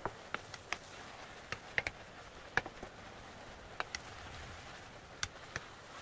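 Wooden spatula tapping and scraping against a frying pan as greens are stir-fried: about a dozen sharp, irregular clicks over a faint steady hiss.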